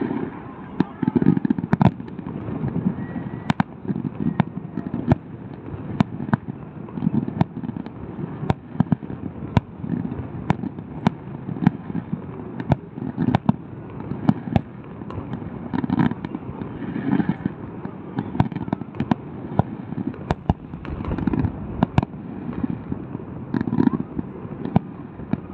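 Fireworks going off: a steady run of sharp bangs, one or two a second, over rolling low booms from bursting shells.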